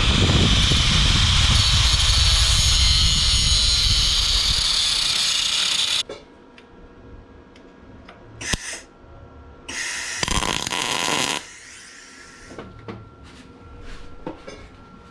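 A power tool working metal runs loudly for about six seconds and stops abruptly. It comes back for a brief burst, then for a longer burst of about a second and a half. Lighter knocks and clatter follow.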